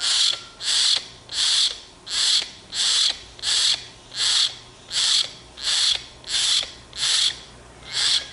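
Young hill myna giving harsh, rasping begging calls over and over, about one every 0.7 seconds, a hungry chick pleading to be fed.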